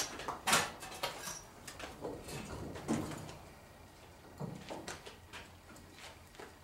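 Irregular knocks and scrapes as a pickup truck cab sitting on a wheeled dolly is pushed and shifted; the loudest knock comes about half a second in.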